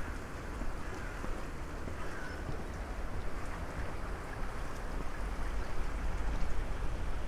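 Outdoor town ambience: a steady rushing noise with a deep rumble beneath it, and a few faint bird calls in the first couple of seconds.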